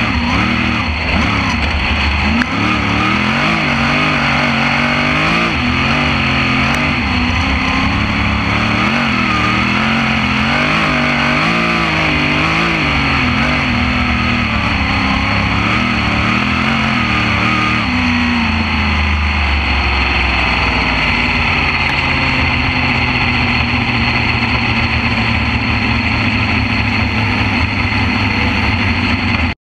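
Winged sprint car's V8 engine heard from inside the cockpit at racing speed, revs rising and falling every couple of seconds as it goes around the dirt oval. From about eighteen seconds in it runs steadier and lower.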